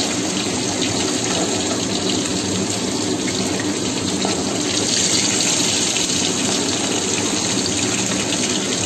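Hot oil sizzling steadily around gourd-leaf-wrapped fish fritters deep-frying in a pan as they fry crisp.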